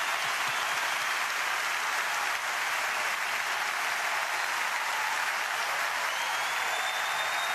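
Large crowd applauding steadily: dense, sustained clapping.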